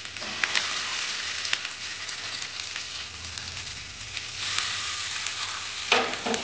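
Hot oil sizzling and crackling in a nonstick frying pan as egg and boiled-potato patties are laid in to shallow-fry. The hiss swells just after a patty goes in, once near the start and again about four seconds in, with a brief louder sound near the end.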